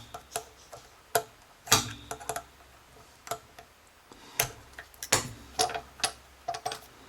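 Irregular sharp metallic clicks and taps from small tools and parts being handled at an ABUS 90/50 padlock as it is taken apart, about a dozen at uneven spacing, some ringing briefly.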